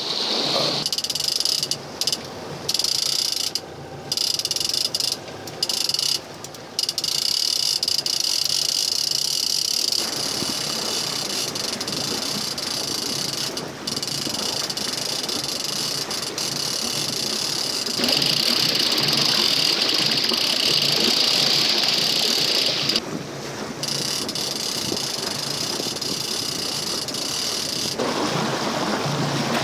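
Boat running with its wake rushing past the hull, under a steady high-pitched buzz that cuts in and out several times in the first seven seconds.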